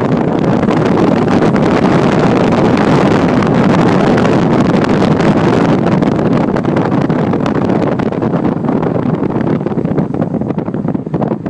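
Wind rushing past the open window of a moving car and buffeting the microphone, over the car's road noise: a loud, steady rush of noise.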